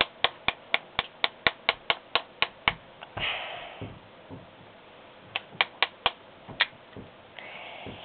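A bump hammer tapping a bump key in a Master padlock, with a tension wrench applied, to bump the pin tumblers open. A run of about a dozen sharp light taps comes at roughly four a second, then after a pause five more taps follow.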